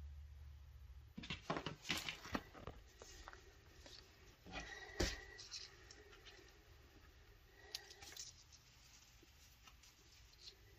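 Quiet handling noises: scattered clicks, taps and rustles, with a cluster around two seconds in and one sharper click with a brief ring about five seconds in.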